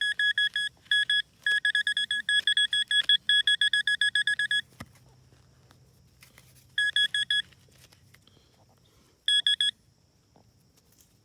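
A handheld metal-detecting pinpointer beeping rapidly on one high tone, in runs of quick pulses at about six a second, as it is worked through a dug soil plug onto a buried metal target. The beeping stops a little under halfway in and comes back twice in short runs.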